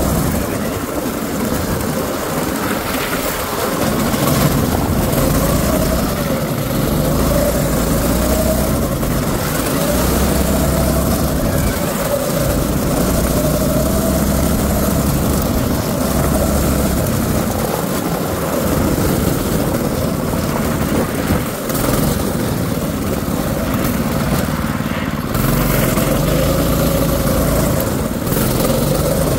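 Predator 6.5 hp single-cylinder four-stroke engine of a drift trike running under way, its note swelling and easing off every few seconds as the throttle is worked.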